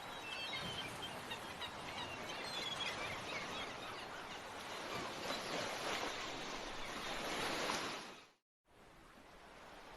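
Steady rushing of water, like surf or a stream, with small bird chirps in the first few seconds. It fades out about eight seconds in, breaks off briefly into silence, then a quieter steady hiss follows.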